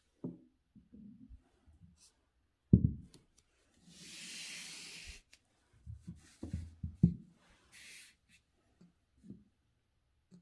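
A sheet of calligraphy paper being handled on a desk: low thumps and knocks, the loudest about three seconds in, and a papery sliding rustle about four seconds in as the sheet is pulled along, with a shorter rustle near eight seconds.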